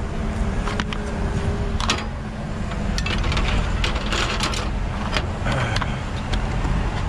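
Metal gladhand couplings and air-hose fittings clinking and clanking as they are handled and set down on a perforated aluminium deck plate, in irregular short knocks, over a steady low engine rumble.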